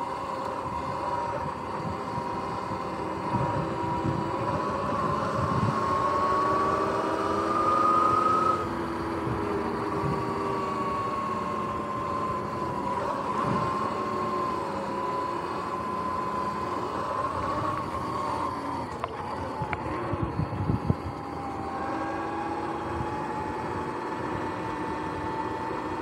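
Sur-Ron X electric dirt bike's motor and primary belt drive whining while riding, a steady tone whose pitch rises and falls with speed, over wind and tyre rumble, with a few sharp clicks about three quarters of the way in. The rider reports that the primary belt has started making weird noises.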